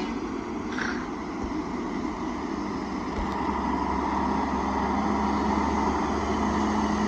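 Cummins diesel engine of a logging truck running with a steady drone, growing louder from about three seconds in.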